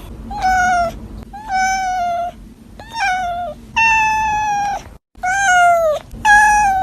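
A cat meowing over and over: about six drawn-out, high-pitched meows, each between half a second and a second long, with short pauses between them.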